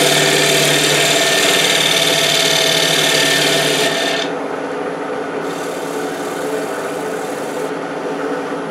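A wood lathe runs while a scraper takes a light skim cut across the face of the spinning wooden piece: a steady scraping over the lathe's motor hum. The cut stops about four seconds in, comes back more faintly for about two seconds, then stops, leaving the motor hum.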